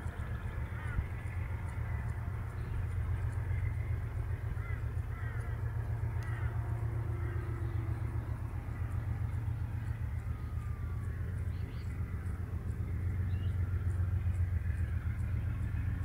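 Distant GE diesel-electric freight locomotive approaching, its engine a steady low drone that grows a little louder near the end. Birds chirp and call over it.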